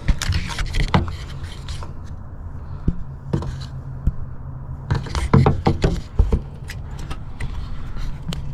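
Sharp clicks, knocks and scrapes of a truck door handle being twisted and its release cable worked out of the handle's slot, in bunches with pauses between, over a steady low hum.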